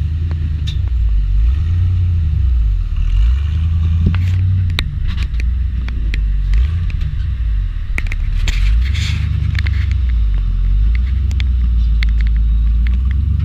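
Off-road vehicle's engine rumbling at low revs, rising and falling as it crawls up a rock ledge, with scattered sharp clicks and crunches of rock under the tires.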